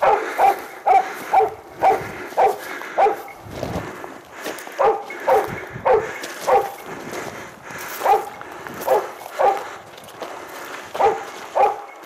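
Hunting dog barking in quick runs of a few barks, about two a second, with short pauses between runs.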